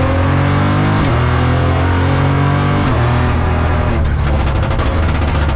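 Opel Corsa Rally4's turbocharged three-cylinder engine heard from inside the cabin, revving hard through the gears with two quick upshifts, about a second in and near three seconds, each dropping the pitch before it climbs again. A rough, rapid crackling comes in about four seconds in.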